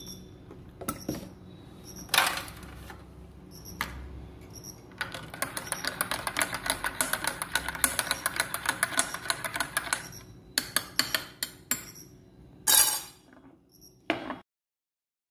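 Steel spoon stirring milk in a ceramic mug, clinking against its sides. A few scattered clinks give way to rapid, steady clinking for about five seconds, then a few separate strikes before it stops.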